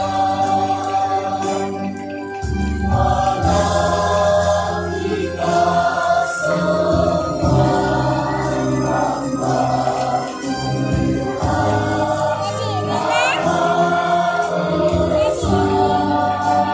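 A choir singing with instrumental accompaniment, in long held notes over a steady low backing.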